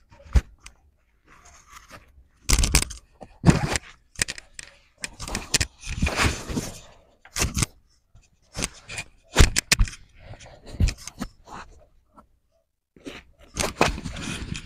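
Irregular rustling and scraping in short bursts, with a few sharp knocks.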